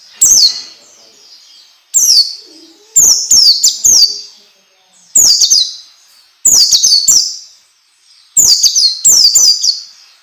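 Pleci (white-eye) song: short bursts of high, rapid notes, each sweeping quickly downward, repeated about seven times with brief gaps between. It is a masteran tutor recording meant to get pet pleci to start singing.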